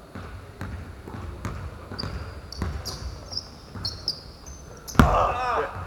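Basketball bouncing on the court roughly every half second, with short high squeaks in the middle. About five seconds in there is a louder bang followed by a brief shout.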